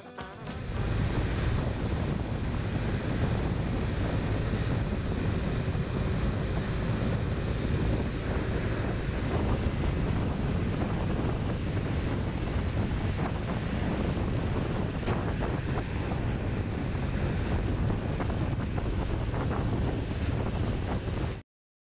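Wind buffeting the camera's microphone on a Honda Vision 50cc moped scooter riding along a country road, a dense, fluttering rush with the vehicle's running noise underneath. It starts about half a second in and cuts off abruptly near the end.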